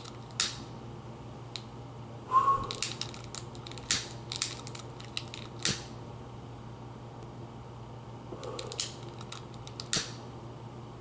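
Long-nosed utility lighter being clicked, about seven sharp snaps of its trigger and piezo igniter spaced irregularly, with the flame catching between clicks.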